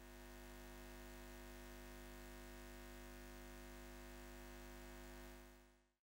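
A faint, steady low hum made of several fixed tones. It fades in at the start and fades out shortly before the end.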